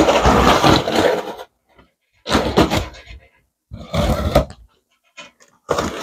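Packing tape being ripped open along the top seam of a cardboard box, in four rasping rips: a long one at the start, two shorter ones in the middle and another just before the end.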